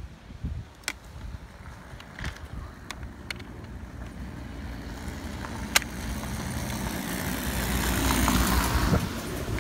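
A vehicle approaching and passing: its noise builds over the second half and peaks shortly before the end, then falls away, over a low steady hum. A few sharp clicks come in the first six seconds.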